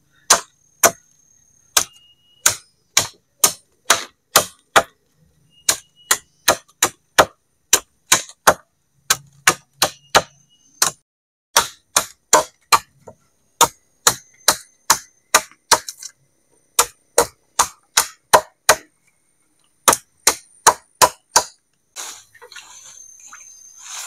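Machete chopping into a green wooden pole: a steady run of sharp blows, about two a second, broken by a few short pauses. The chopping stops about two seconds before the end, when a softer noise takes over.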